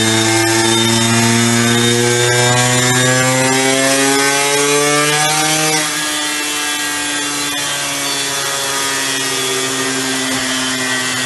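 Tuned 94 cc reed-valve two-stroke engine of a Hercules Ultra II, fitted with a test exhaust and running in sixth gear on a dyno. The revs climb steadily under load for about six seconds. The throttle then closes suddenly and the engine runs on more quietly as the revs slowly fall away.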